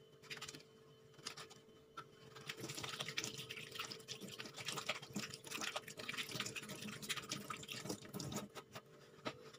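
Water from a tap splashing into a stainless-steel sink as hands are washed under it, the splashing picking up about two seconds in. A faint steady hum runs underneath.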